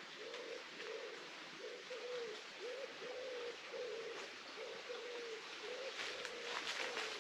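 A pigeon cooing: a steady run of low, evenly spaced coos, about two a second. A few faint ticks come near the end.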